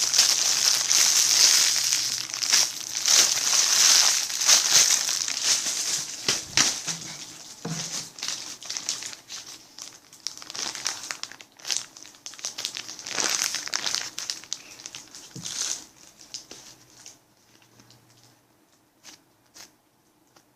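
Plastic bag crinkling as it is handled: dense and continuous for the first six seconds or so, then in scattered crackles that thin out and stop a few seconds before the end.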